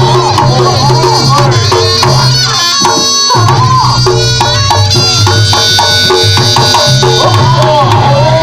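Reog Ponorogo accompaniment music played loud, driven by hand drums in a quick rhythm with held pitched tones and a wavering melody over them; a brief drop in the drums about three seconds in.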